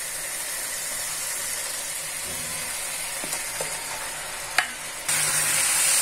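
Masala paste sizzling in hot oil in a pan, with a few light scrapes. About five seconds in there is a sharp knock, and then the sizzle jumps suddenly louder and brighter as raw beef chunks are tipped into the hot masala.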